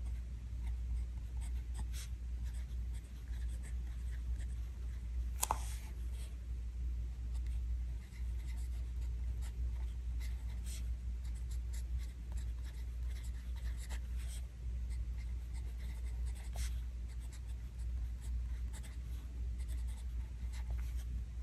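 TWSBI ECO fountain pen writing by hand on thin planner paper: the soft scratch of the nib over the page with light ticks as it lifts and touches down between letters, and one sharper tick about five seconds in. A low steady hum runs underneath.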